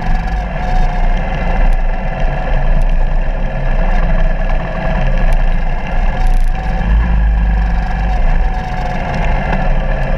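Suzuki DR200's single-cylinder four-stroke engine running steadily at low trail speed, its note wavering as the throttle is opened and closed, over a heavy low rumble on the bike-mounted microphone.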